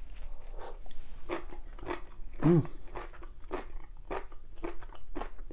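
A person chewing a mouthful of crunchy wood ear mushroom and carrot salad, with steady crisp chews about three a second. There is a short hummed "mm" about halfway through.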